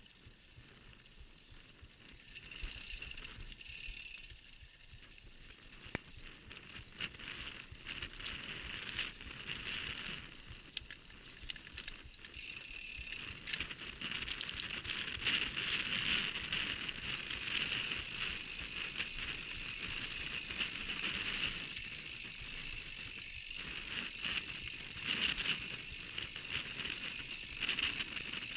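Mountain bike riding over a rutted dirt track: knobby tyres crunching on dry dirt, and the bike's parts rattling steadily over the bumps. It gets louder over the first fifteen seconds or so as the bike picks up speed.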